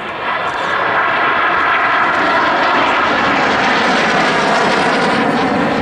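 Lockheed T-33 Shooting Star jet trainer flying past, its Allison J33 turbojet giving a loud, steady rush with a faint whine in it.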